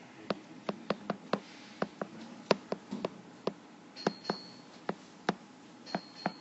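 Stylus tip tapping and clicking on a tablet screen while handwriting, short sharp clicks at an irregular pace of about three a second.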